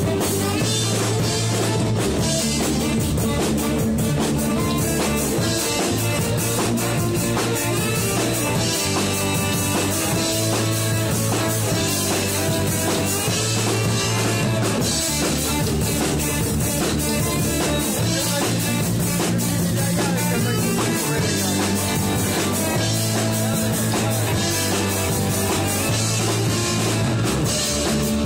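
Rock band playing live with electric guitar, bass guitar and drum kit, an instrumental passage with no singing.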